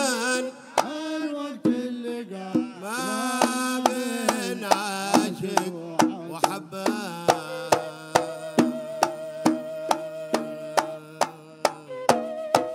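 Men singing a Hadhrami zarbadi song to hand-drum accompaniment: a few seconds of sung melody, then a long held note over steady drum beats about three a second, breaking off near the end.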